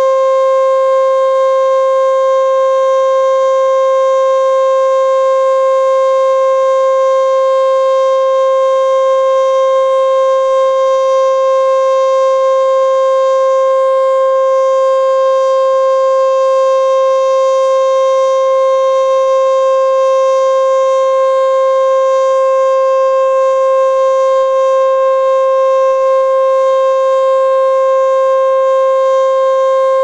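E.D. Bullard 3H27 outdoor warning siren sounding the steady Alert signal: one unbroken tone held at a level pitch, loud and rich in overtones.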